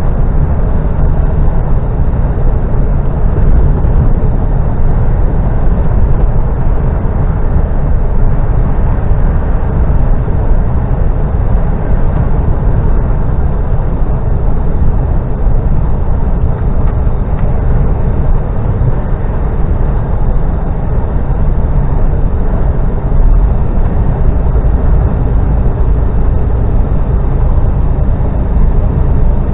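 Steady engine and road noise inside a moving vehicle's cabin, mostly deep and low-pitched and unchanging throughout.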